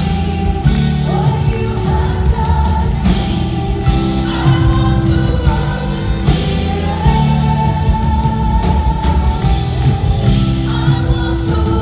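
Contemporary worship band playing live, with a woman singing lead over electric bass and the rest of the band.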